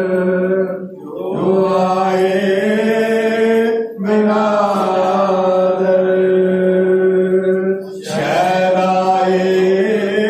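Men's voices chanting a Muharram nauha (mourning lament) through microphones, in long, drawn-out lines of about four seconds each with short breaks between them.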